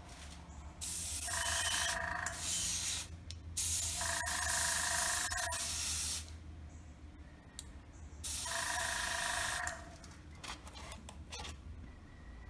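Airbrush spraying thin acrylic lacquer: three bursts of hissing air, each two to three seconds long, with short pauses between them.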